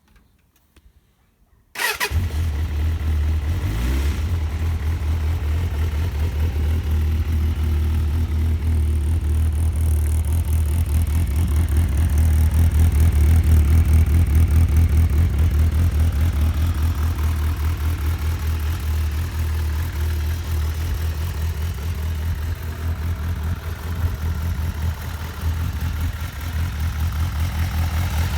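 Stock Suzuki GSF400 Bandit's 400cc inline-four engine starting about two seconds in, then idling steadily with an even pulse.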